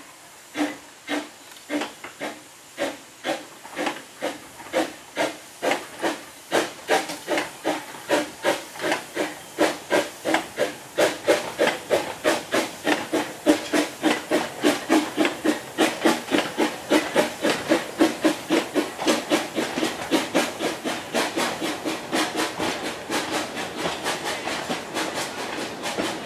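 Narrow-gauge steam locomotive pulling a train away. Its exhaust beats quicken from about one and a half to about three a second and grow louder as it passes close by. Near the end the chuffs fade under the rumble of the coaches rolling past.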